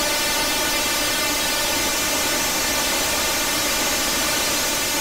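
The sound of a 400-year-old lime (linden) tree in strong wind: a steady, dense hiss with an even, many-toned hum running through it, unchanging throughout.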